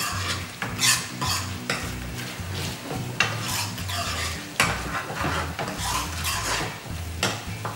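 A metal ladle stirring and scraping thick paneer gravy around a frying pan over a gas flame, in irregular strokes with the odd knock against the pan, while the gravy sizzles as it cooks.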